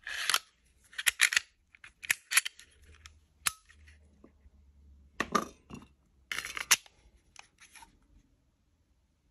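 HS H11 RDR (Springfield Hellcat RDR) pistol being reassembled and handled: the steel slide sliding onto the polymer frame rails, giving a series of short scrapes and clicks, with one sharp click about three and a half seconds in.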